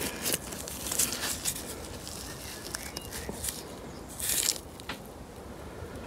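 Gloved fingers rubbing and scraping grime from around the pistons inside a motorcycle brake caliper: irregular scratchy scuffs, with a longer, louder one about four seconds in.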